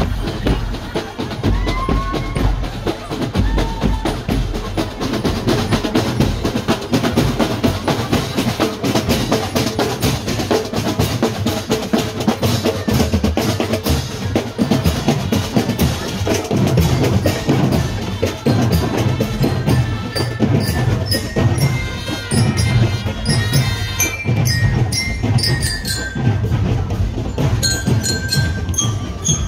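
Marching band drum line playing a fast, steady beat on snare drums, bass drums and cymbals. A little past two-thirds of the way through, trumpets join in with a melody over the drumming.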